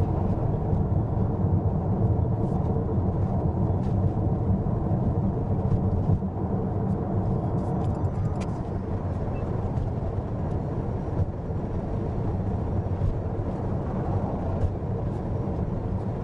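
Mitsubishi Outlander PHEV cruising at expressway speed: a steady low rumble of road and tyre noise with wind.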